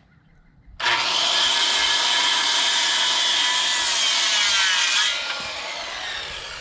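Handheld circular saw starting abruptly about a second in and cutting through a pressure-treated pine rafter at a 3-in-12 pitch angle. Near the end the blade comes out of the wood and winds down with a falling whine.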